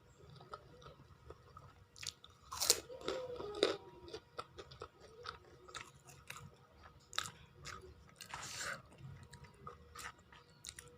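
Close-miked chewing and crunching of food, with many small mouth clicks and a few louder crunches about three to four seconds in and again near the ninth second.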